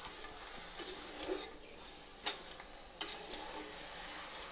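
A spoon stirring raw beef pieces into masala in an aluminium pressure cooker: faint mixing with a few sharp clicks of the spoon against the pot, the clearest about two and three seconds in.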